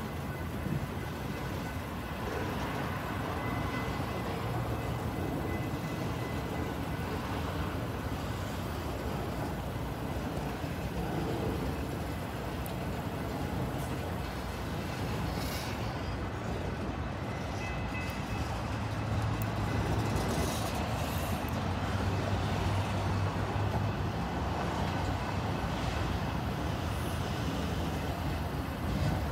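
Freight train of autorack cars rolling slowly past: a steady rumble of wheels on rail with faint steady high tones, a little louder about two-thirds of the way through.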